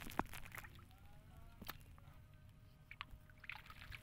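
Quiet wading in shallow seawater: scattered faint clicks and small water sounds, with a faint distant voice about a second in.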